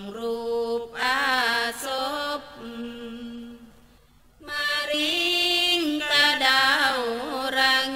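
A single voice chanting Buddhist dhamma verses in Thai, with long held notes that glide and waver. It breaks off briefly about four seconds in, then carries on.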